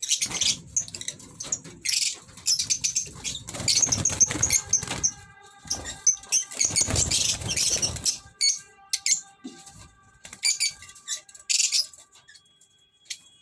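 Caged birds chirping with quick high calls and rustling, amid many sharp clicks, with steady held music tones underneath through the middle.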